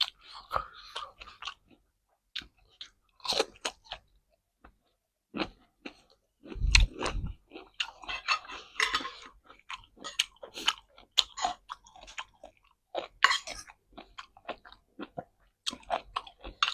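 Close-miked chewing of crisp raw vegetables, with irregular sharp crunches as the food is bitten and ground. A louder, deeper thud comes about seven seconds in.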